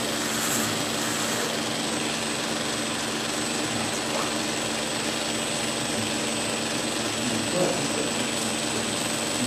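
Belt grinder running steadily with a constant high whine as a steel straight-razor blade is ground edge-down against its abrasive belt over the contact wheel.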